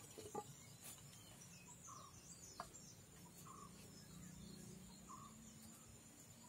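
Near silence with faint outdoor background: a short chirp repeating about every one and a half seconds and a faint high wavering bird-like call. A few light knocks at the very start as the wooden churning stick is lifted out of the clay pot.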